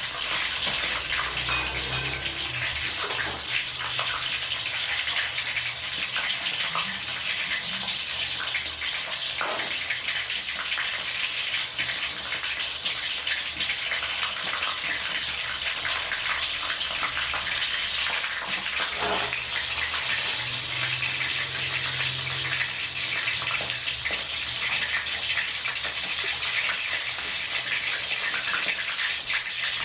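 Whole fish shallow-frying in hot oil in a wok: a steady, dense sizzle with fine crackling.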